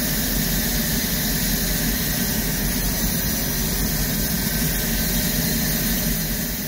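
Diesel-electric freight locomotive heard from inside its cab, running at idle: a steady low rumble under a constant hiss, with no change.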